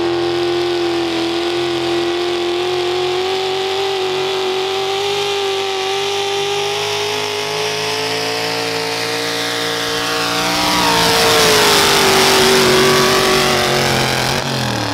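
Gas big-block V8 in a Ford pulling truck running hard under load as it drags the sled, its note climbing at first and then holding high and rising slowly. About eleven seconds in the pitch drops and a louder rushing noise joins for a couple of seconds, then the engine note falls.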